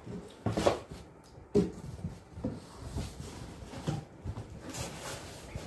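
Cardboard boxes being handled: a few dull knocks and scraping rustles as a boxed product is set down and the flaps of a cardboard carton are pulled open, with the sharpest knock about a second and a half in.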